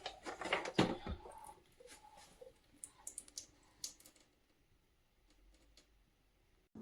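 Clicks and light knocks of plastic parts on a Cuisinart SS-16 coffee maker being handled, busiest in the first second, then a few scattered sharp clicks up to about four seconds in before it goes quiet.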